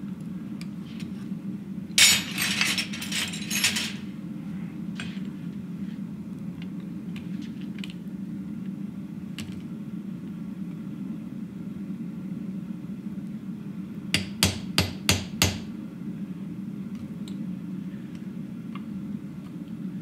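Hammer blows on a chisel set into red-hot steel on an anvil, deepening a chiseled leaf-vein pattern in a forged hinge leaf. A quick flurry of strikes comes about two seconds in, and a run of five sharp blows follows near fourteen seconds, over a steady low hum.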